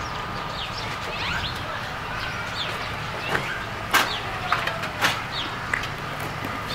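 Small birds chirping in many short, high notes over steady low background noise, with sharp clicks about four and five seconds in.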